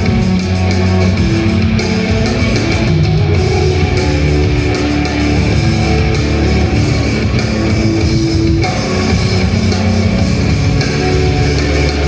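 Live instrumental rock music, loud and steady: electric guitar and keyboards playing held notes over a driving beat.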